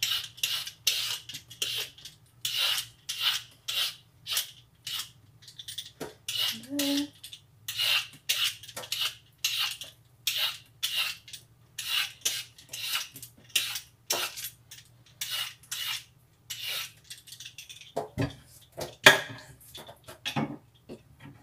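Handheld vegetable peeler scraping strips of skin off an unripe green papaya in quick repeated strokes, about two a second. A few knocks near the end.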